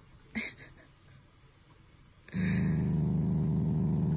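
Black Shiba Inu growling, a steady, rough, low rumble that starts about two seconds in. It is the dog's playful, affectionate growl at its owner's touch, not anger.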